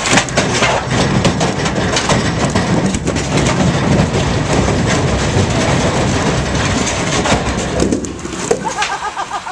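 Large boulders sliding out of a tipped dump truck bed and crashing down onto the ground and onto each other: a long, dense crash full of knocks, which dies away about eight seconds in.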